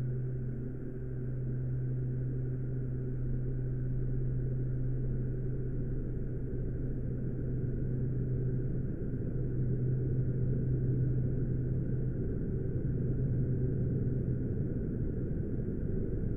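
A low, steady droning hum over a dense rumble; the hum fades out about fourteen seconds in while the rumble carries on.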